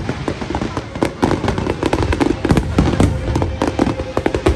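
Aerial fireworks going off in a dense, irregular barrage of bangs and crackles, many reports a second, as several shells burst together.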